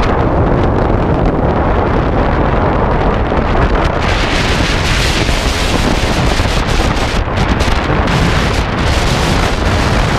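Strong wind buffeting the microphone: a loud, continuous rumbling noise that swells and dips with the gusts.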